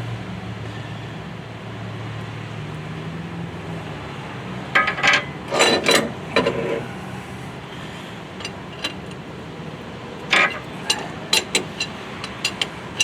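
Metal clinks and knocks from hand work on a skid steer's hydraulic bucket cylinder, in two bursts about five seconds in and again about ten seconds in, over a steady low hum.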